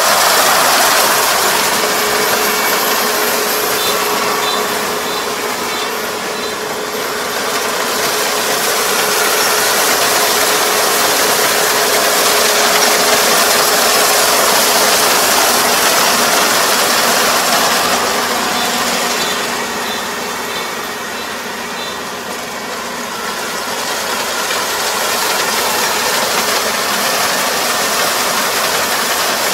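Rice combine harvester running at work, its engine and cutting and threshing machinery making a steady mechanical din, with a steady hum through much of it. The loudness rises and falls twice as the machine's distance changes.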